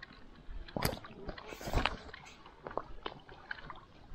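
Irregular splashes, sloshes and knocks in shallow weedy water as a landing net is worked at the bank, with a sharper splash about a second in and another near two seconds.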